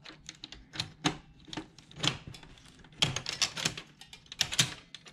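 Irregular clicks and light knocks of an HP LaserJet 4250 printer's swing plate assembly, a metal bracket carrying plastic gears, being worked at an angle into its hole in the printer's sheet-metal frame. The clicks come in uneven runs, loudest in the second half.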